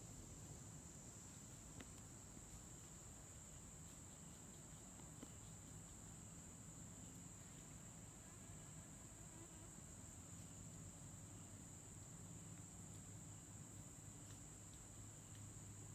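Faint, steady high-pitched insect chorus trilling without a break.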